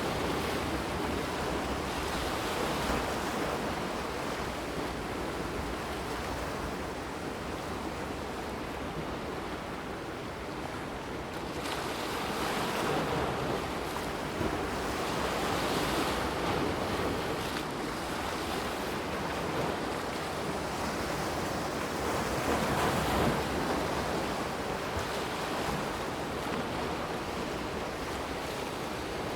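Water of a brook flowing and rushing steadily, swelling louder now and then.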